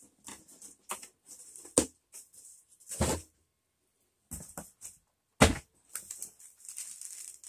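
Cardboard boxes and packaging being handled: scattered rustling and scraping with several sharp knocks, the loudest about five and a half seconds in.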